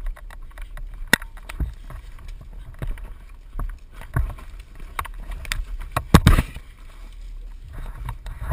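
Irregular scuffs, knocks and bumps of footsteps and camera handling on a dirt trail through brush, over a low rumble of wind on the microphone, with a louder cluster of thumps about six seconds in.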